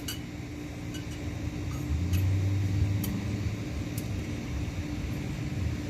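A few light clicks of plastic support poles being handled and fitted together, over a steady background hum that swells into a low rumble for a second or so around the middle.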